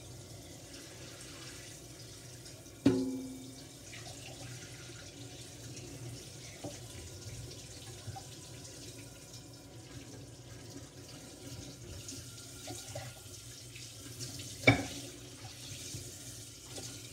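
Kitchen faucet running steadily into a stainless steel sink during hand dishwashing, with two sharp clanks of dishware knocking against the sink, about three seconds in and again near the end.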